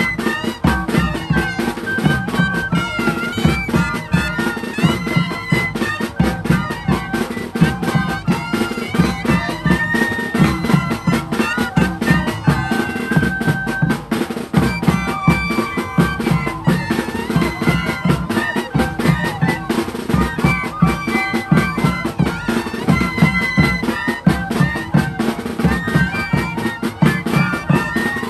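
Moseñada music played live: moseño cane flutes sounding a melody in held notes over a steady bass drum and snare drum beat.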